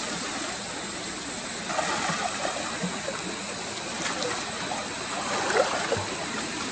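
Steady rush of flowing water with light splashing, and faint voices now and then.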